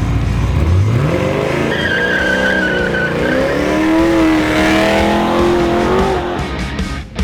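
Twin-turbo LSX V8 of a 1969 Camaro accelerating hard: the revs climb steeply about a second in and then hold high, with a brief high squeal around two seconds in.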